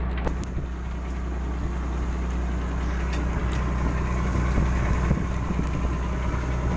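Container ship machinery running with a steady low hum, with a few faint clicks over it.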